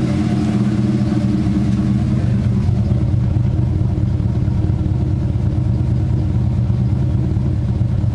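Holden R8 Clubsport's 5.7-litre LS1 V8, fitted with a new Comp Cams camshaft, running steadily at a raised idle while it warms up on its first run after the cam swap.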